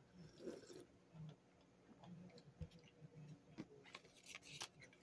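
Near silence: room tone with a few faint, irregular clicks and taps.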